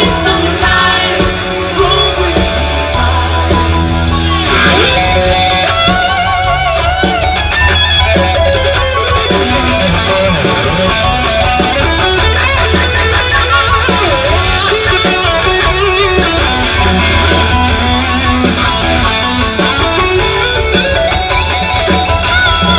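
Rock band playing live: electric guitar over bass guitar and drums, with a steady beat and cymbals.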